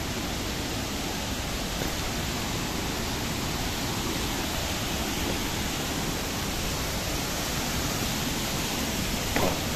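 Waterfall and rocky stream rushing: a steady, even noise of falling and running water.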